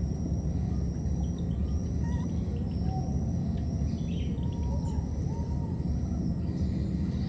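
Outdoor ambience: a steady low rumble, with a few faint short calls that bend up and down in pitch and a thin high tone that comes back about once a second.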